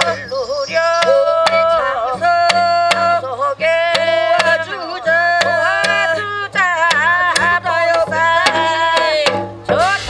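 Korean shamanic ritual music: a taepyeongso (Korean shawm) plays a sliding, bending melody over a barrel drum beaten about twice a second.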